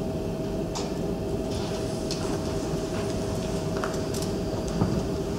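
Room tone: a steady low hum with a faint held tone running through it, and a few faint scattered clicks.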